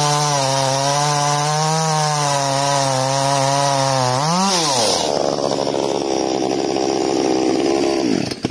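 Ryobi 50cc two-stroke petrol chainsaw cutting through a red gum log under the saw's own weight, its engine running steady and loaded in the cut. About four and a half seconds in it speeds up sharply as it breaks through, then drops back and keeps running until it stops abruptly near the end.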